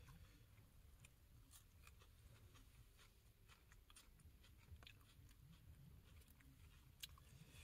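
Near silence with faint sounds of two people eating chicken by hand: soft chewing and scattered small clicks.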